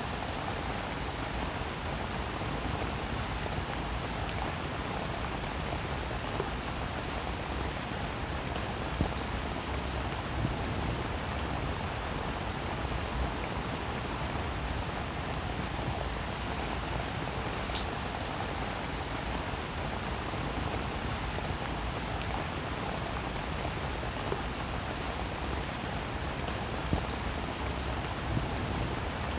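Steady, even hiss of noise with many faint tiny crackles through it, like rain falling.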